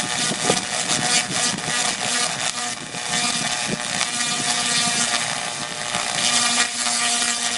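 Tesla coil firing: a loud, buzzing crackle of sparks with a steady hum underneath.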